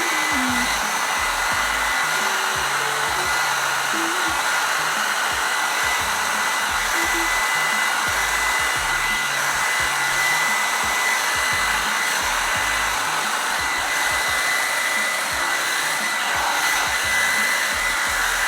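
Revlon One-Step hot-air brush running steadily on its low heat setting: a rushing blast of air with a thin, steady high whine from the motor.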